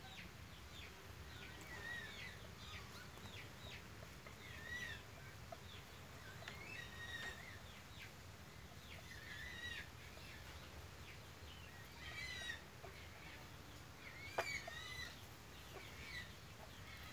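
Hens clucking and calling faintly: a scattering of short calls with no steady rhythm.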